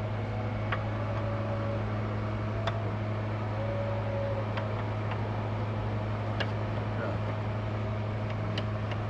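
A steady low hum, with a scattering of short, light metallic clicks and clinks from hand tools.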